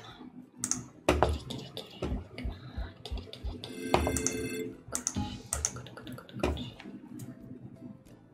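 Marlin Catch online slot game audio: background music with clicking reel stops as a free spin plays out, and a bright chiming jingle about four seconds in as a small win lands.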